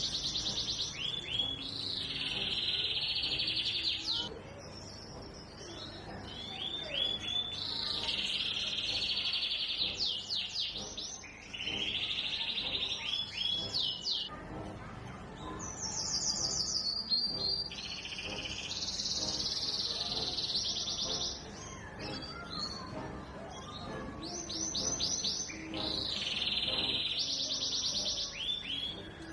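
Canary singing: high, rolling trills and rapid runs of repeated notes, in phrases of a few seconds with short pauses between.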